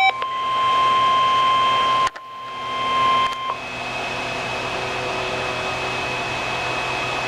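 Emergency alert tone from a weather radio broadcast: a single steady beep-like tone that cuts out briefly about two seconds in and stops about three and a half seconds in. It is followed by steady radio hiss with a faint whine, the dead air before the spoken alert message.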